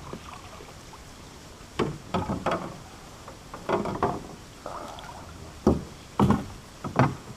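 A series of short knocks and bumps against a kayak, in uneven clusters, over a low steady background.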